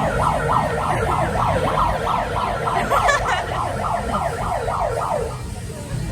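Siren-like alarm wailing in fast repeated falling sweeps, about four a second, over crowd hum; it stops about five seconds in.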